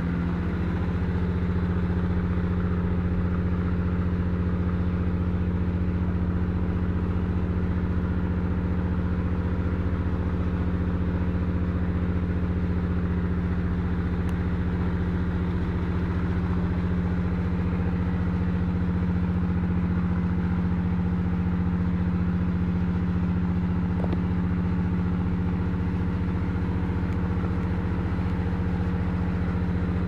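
An engine running steadily at a constant speed, a low unchanging hum.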